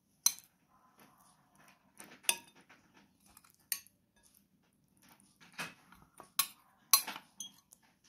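Metal spoon clinking and scraping against glass bowls as canned tuna is scooped out and spread. There are about half a dozen sharp clinks, the loudest near the end, with soft scraping between them.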